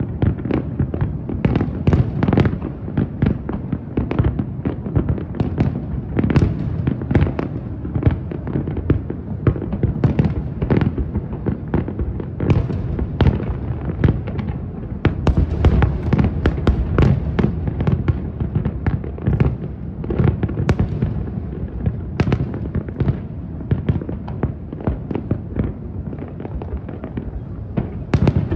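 Large aerial fireworks display: shell bursts going off in rapid succession, many bangs a second, over a continuous low rumble of echoing explosions.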